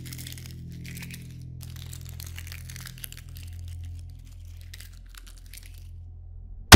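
Sticky, crackling sound effects, like something tacky pulling away from leather in strands, over a low droning musical score. Right at the end a sudden, very loud boom cuts in.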